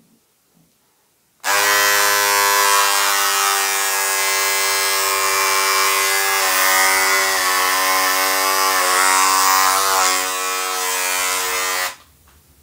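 Electric shaver switched on about a second and a half in and buzzing steadily while a full beard is shaved off, its pitch wavering slightly in the middle, then switched off abruptly near the end.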